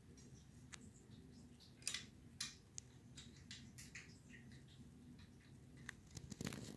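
Faint scattered clicks and short rustles of handling in a small room over a low steady hum, with a louder rustle near the end.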